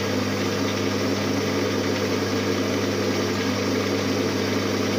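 Maximat metal lathe running steadily at about 240 rpm with a steady motor hum, a parting tool cutting into the spinning metal workpiece to part it off.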